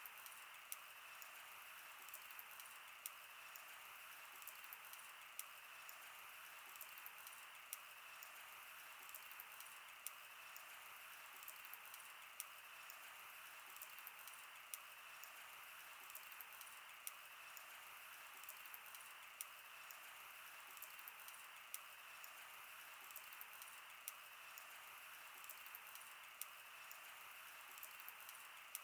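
Campfire of burning wood: a soft, steady hiss with frequent irregular crackles and sharp pops.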